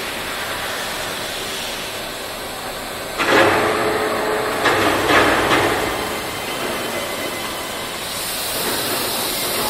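Steady background din of a machine-tool factory hall. Two louder, noisier stretches come about three and five seconds in, and a high hiss rises near the end.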